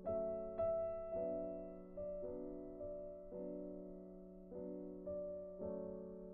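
Background piano music: notes and chords struck every half-second to second, each fading away.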